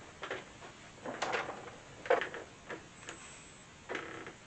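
Small metal hardware being handled, giving a handful of short clinks and knocks, with a brief scrape about four seconds in.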